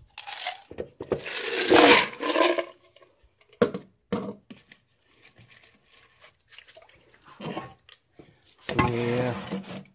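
Water poured from a jug into a plastic bucket, splashing over small lead bullet cores in a mesh screen, then swished around by hand to rinse the vinegar off them. The pour is loudest and longest about a second in, with shorter splashes and knocks after it.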